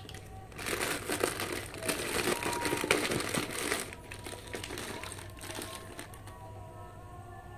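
Thin black plastic bag crinkling as hands handle it and pull a clear plastic piece out of it. The crinkling is loudest from about half a second in until about four seconds in, then goes on more softly.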